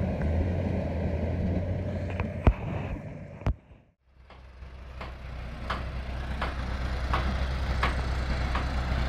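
Heavy truck engine running steadily, with a few sharp knocks. The sound drops out briefly about four seconds in, then an engine is heard running again.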